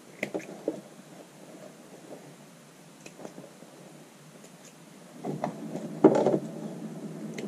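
Small thread-trimming scissors snipping loose sewing threads, a few short clicks, then the cotton fabric rustling and shuffling as it is handled, loudest about six seconds in.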